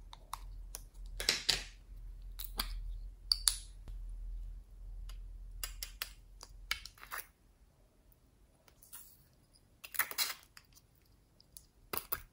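Small hard plastic toy containers handled and pulled open: irregular plastic clicks, taps and snaps, with a couple of longer scraping sounds, about a second in and about ten seconds in.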